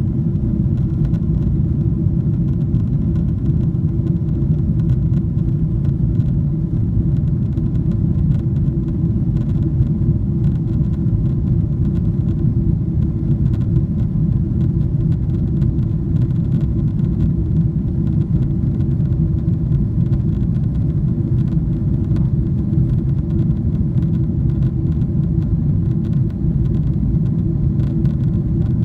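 Cabin noise of a Boeing 777-300ER in flight: the steady low rumble of its GE90-115B engines and the airflow, heard from a window seat inside the passenger cabin, with a steady hum running under it.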